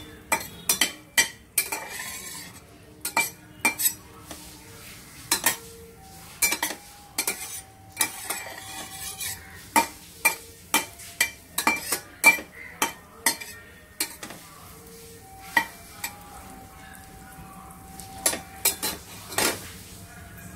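Spatula stirring cluster beans sautéing in butter in a stainless steel pan: irregular sharp clinks and scrapes against the pan, about one or two a second, some leaving a short ring, over a faint sizzle.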